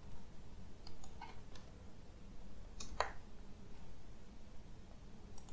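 A few faint, scattered clicks of computer keys and a mouse, over low room noise.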